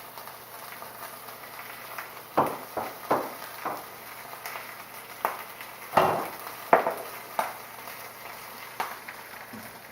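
Cookware being handled in a kitchen: about eight sharp knocks and clatters of utensils against pots and pans, spread irregularly through the middle, over a low steady hiss of food cooking on the stove.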